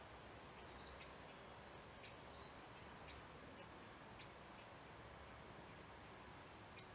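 Faint, very short, high-pitched bird chirps, a dozen or so scattered irregularly over a near-silent background hiss.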